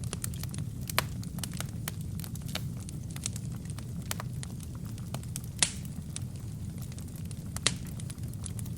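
Wood fire burning with a steady low rumble and many sharp crackles, three louder pops about a second in, halfway through and near the end.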